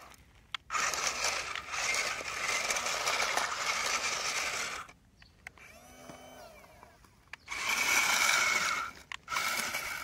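Small electric gear motors of a remote-control toy wheel loader whirring with a steady high-pitched drone. A long run of about four seconds stops, then two shorter runs come near the end as the loader arm, bucket and wheels are worked.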